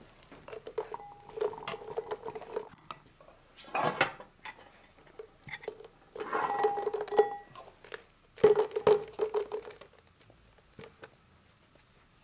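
Dried plums tipped out of a plastic jar into a ceramic bowl, clattering against it and making the bowl ring, in several bursts over the first ten seconds.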